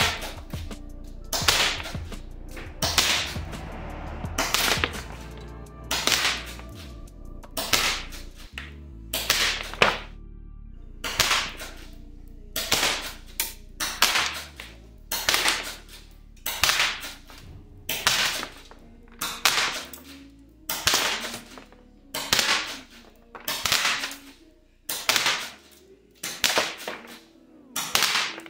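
Golden Eagle sawn-off M870-style gas airsoft shotgun firing shot after shot, a sharp crack about every second and a bit, set to throw about six BBs per shot.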